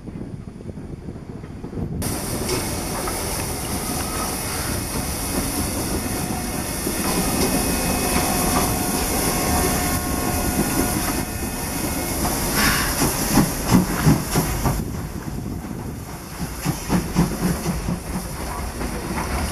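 Passenger coaches roll past for about the first two seconds. Then comes class 52 steam locomotive 52 8038 on the move, with steam hissing steadily from around its cylinders and the wheels clattering on the rails. Heavier irregular chuffs come in the last few seconds.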